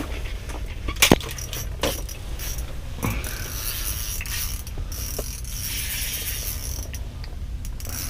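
Small ice-fishing reel being worked by hand: a run of light mechanical clicks and ticks, with a few sharper knocks about one, two and three seconds in, over a steady low hum.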